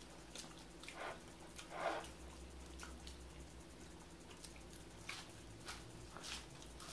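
Faint, close-miked eating of breaded fish sticks: scattered wet smacks and clicks of chewing mouths, a few stronger ones about 1 and 2 seconds in.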